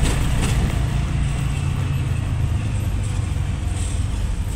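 Auto-rickshaw engine running steadily while riding in traffic, heard from inside the open cabin with a low rumble and road noise.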